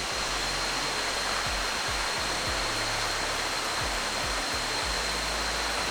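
Steady rush of a waterfall's falling water, an even hiss with a thin steady high tone over it.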